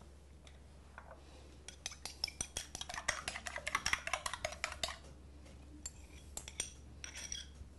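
A fork beating eggs in a small ceramic bowl: rapid clinking of the fork against the bowl for about three seconds, then a few scattered taps.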